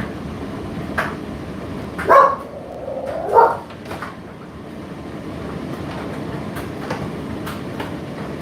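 Indesit IDC8T3 condenser tumble dryer running, its drum turning with a steady rumble and a knock about once a second as the load drops inside. Two louder, short pitched sounds come about two and three and a half seconds in.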